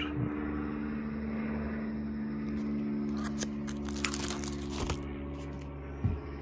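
Plastic photo-album sleeves crinkling and rustling as a page is turned, about three to five seconds in, with a small knock near the end, over a steady low hum.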